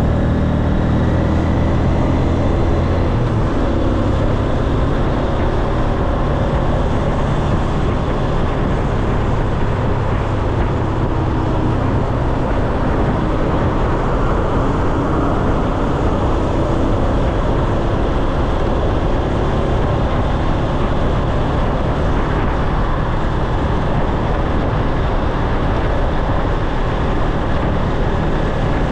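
Motor scooter on the move: steady wind rushing over the microphone with engine and road noise underneath, the engine's low hum plainest in the first three seconds.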